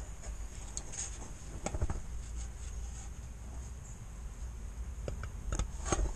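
Scattered light metallic clicks and scrapes of a long screwdriver worked through a hole in a rear wheel hub flange, probing the handbrake shoe parts behind it. The clicks come in two clusters, about two seconds in and again near the end.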